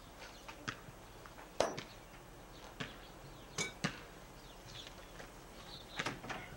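A handful of sharp, irregular knocks and clacks from work on an old wooden gate, a second or so apart, the loudest about a second and a half in.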